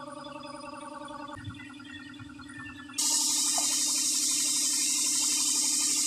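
Homemade air compressor, a washing-machine motor belt-driving a car AC compressor, running with a steady hum; the hum dips slightly in pitch about a second and a half in. About halfway through, a loud, steady hiss of compressed air starts at the hose and tyre valve.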